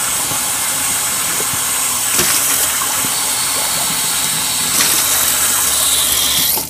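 Water running from a faucet into a stainless steel sink, a steady splashing rush that stops abruptly at the end as the flow is shut off.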